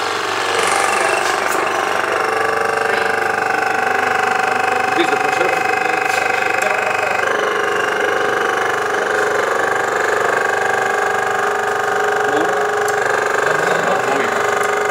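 Keiser KT17999 crack-injection pump running steadily under load while it forces chemical through the hose and gun into a packer in a concrete floor crack: a steady mechanical whine whose tone shifts slightly about seven seconds in.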